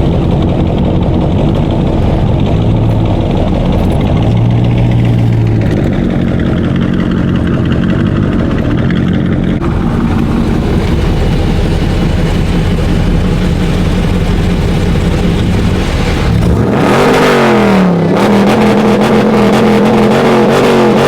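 Car engine and road noise, a steady low rumble, then about three-quarters of the way through a loud engine note that rises and falls in pitch several times, as when an engine is revved or the car speeds up and slows down.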